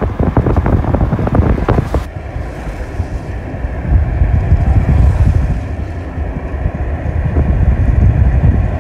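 Wind buffeting the microphone of a camera in a moving car, with a loud, steady low rumble of wind and road noise.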